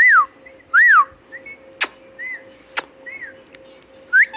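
Pet parrot whistling: two loud rising-then-falling whistle calls in quick succession, then several softer short chirps, with two sharp clicks in between and another call near the end.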